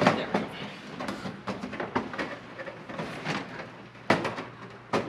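Aluminium airframe parts of a kit-plane fuselage clicking, tapping and knocking as a cabin side's longeron extrusion is worked into place, with louder knocks about four seconds in.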